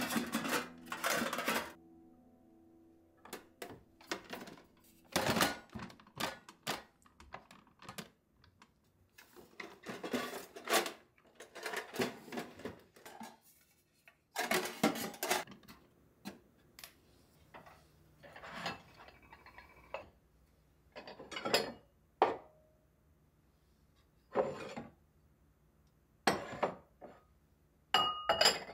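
Stainless steel food containers and lids clinking and knocking as they are handled and stood upright in a kitchen drawer: a series of separate clatters with short pauses between. Near the end, a ceramic bowl clinks with a brief ring as it is set on a cabinet shelf.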